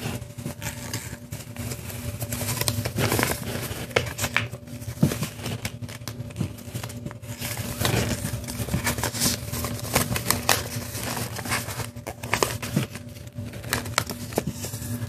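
A sheet of paper being folded by hand: irregular rustling and crisp crackles as the paper is handled, folded over and its creases pressed down against the table.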